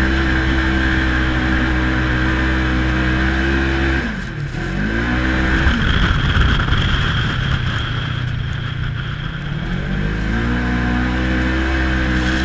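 Side-by-side UTV engine heard from inside the cab, held steady at high revs, then dropping off sharply about four seconds in. It runs lower and rougher for several seconds, then revs back up to a steady high drone about ten seconds in as the machine climbs a dune.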